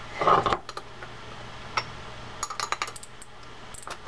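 Small metal parts of a Shimano Torium star-drag reel clicking and clinking as the handle's nut cap and the star drag are tightened by hand and with a tool. A short louder clatter comes near the start, then scattered clicks, with a quick run of them past the halfway point.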